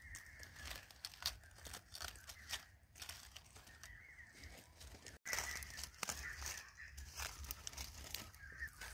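Rustling and crackling of dry leaf litter, many small irregular crackles as it is stepped on or pushed aside.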